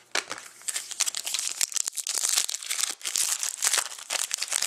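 Foil wrapper of a hockey card pack crinkling and tearing as it is pulled open by hand, a dense run of quick crackles.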